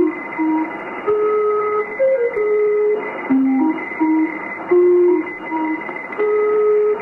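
A simple instrumental jingle played one note at a time, its short melodic phrase looping about every three and a half seconds, with a steady thin high tone underneath.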